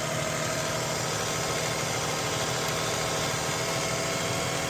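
Lexus ES300's 3.0-litre V6 idling steadily after a jump start, with the newly fitted alternator charging the drained battery.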